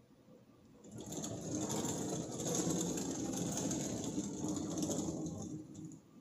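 A chuck roller's free-spinning metal discs rolling up painted wall paneling with a fast, continuous rattle, laying black glaze in as fine wood-grain detail. It starts about a second in and stops near the end.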